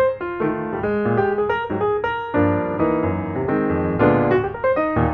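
Background piano music, a quick run of notes and chords.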